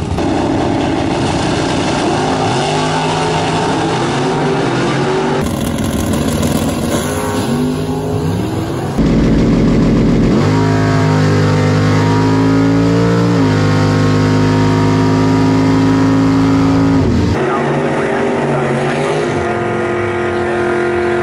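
Drag-racing V8 engines revving in short pieces, the loudest a 1964 Chevelle Malibu SS's 421 cubic-inch small-block V8 at wide-open throttle on a pass: the pitch climbs, drops once partway through at the two-speed Powerglide's shift, then holds.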